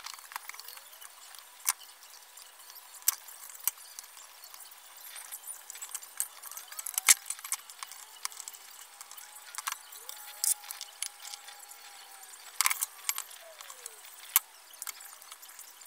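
Small metallic clicks and clinks of a screwdriver and the brass parts of a pendulum-clock movement being handled and taken apart, coming at irregular moments, the sharpest about seven seconds in.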